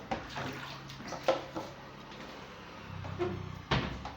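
A few sharp knocks and clatters of kitchenware and containers being handled, the loudest near the end, over a faint low hum.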